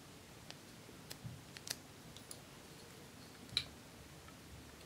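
Faint, scattered clicks and taps from handling a plastic eyeshadow compact and a plastic spatula over a glass dish, with a sharper click about three and a half seconds in.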